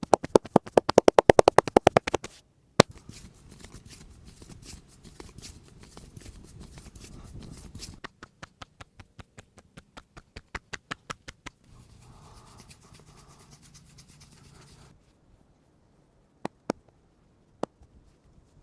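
Hands massaging a head: a fast run of tapping strikes, about eight a second, then rubbing and scratching through the hair and scalp, then a slower run of lighter taps about three a second. More rubbing follows, and a few separate clicks sound near the end.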